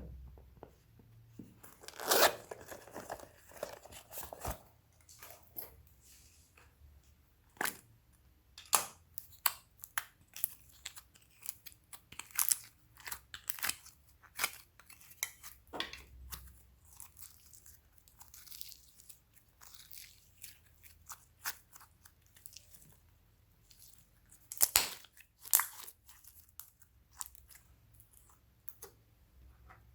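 Slime being squished and kneaded by hand, making irregular sharp clicks, pops and crackles, with a longer crackling stretch about two seconds in.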